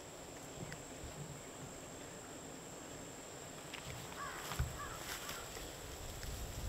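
Faint outdoor ambience: a steady thin high tone under a low hiss, with a short run of bird calls about four seconds in and a soft low thump among them.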